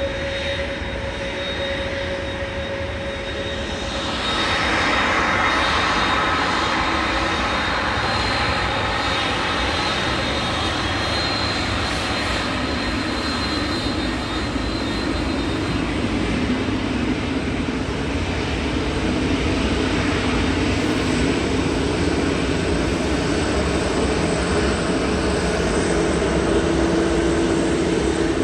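Jet airliner engines running, a steady roar with faint whining tones that grows louder about four seconds in and stays loud.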